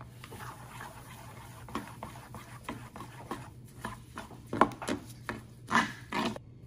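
A metal spoon stirring black sesame seeds into thin rice-flour batter in a metal bowl: irregular wet slaps and scrapes, with a few louder ones in the second half.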